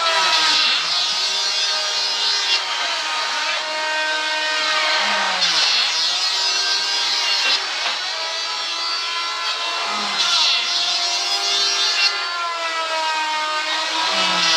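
A power woodworking tool cutting wood in repeated passes. Its motor whine sags and recovers, with a hissing rasp that swells every few seconds.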